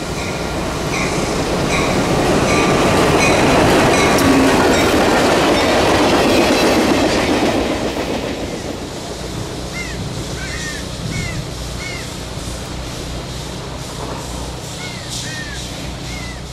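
Diesel work-train locomotive JPBX 503 passing with its cars, the engine and the wheels on the rails building to a peak a few seconds in, then fading as the train goes by. A bell rings in evenly spaced strokes during the approach.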